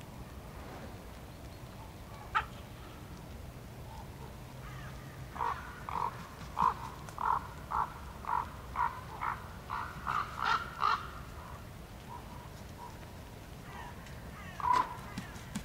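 Crows cawing: a single caw, then a quick run of about a dozen caws at roughly two a second, and another caw near the end.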